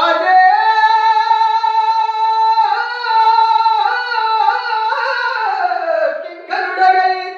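A man singing a Telugu verse unaccompanied in a high voice, drawing out one long held note for about two and a half seconds. He then moves through a few shorter turns and glides down before a brief final note.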